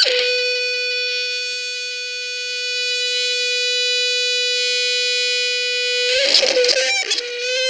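Microphone-to-loudspeaker feedback from a homemade wooden speaker-box instrument: a steady tone with a buzzy stack of overtones, held at one pitch. About six seconds in it breaks into a wavering, jumbled squeal for about a second, then settles back onto the same pitch.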